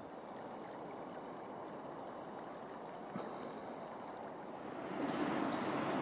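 Steady flow of a small river's water, with a passing vehicle swelling in louder about five seconds in.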